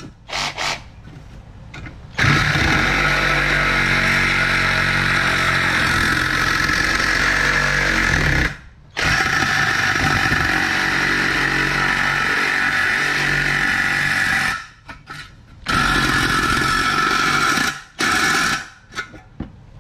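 Chinese-made cordless reciprocating saw cutting through 1.2 mm hollow square steel tube. It runs in three long runs of several seconds each, with brief stops between them, then a few short bursts near the end as the cut is finished.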